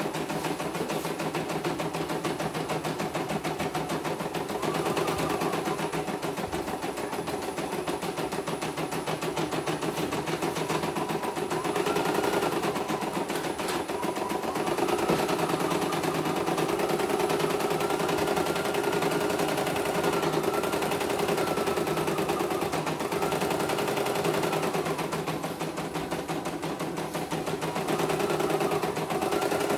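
CNY E900 computerized embroidery machine stitching a design: a fast, steady needle clatter, with short rising-and-falling whines over it every few seconds.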